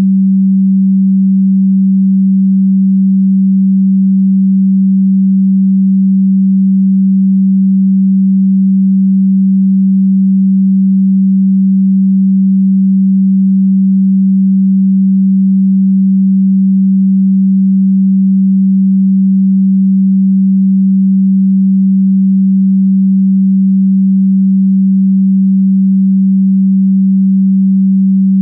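A single steady, low pure sine tone, held at one pitch without change: an electronically generated frequency track.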